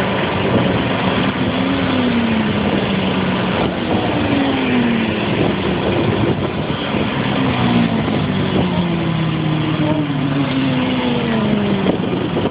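Sport motorcycles passing one after another on a race-track straight, each engine note sliding down in pitch as the bike goes by, over a steady rushing noise.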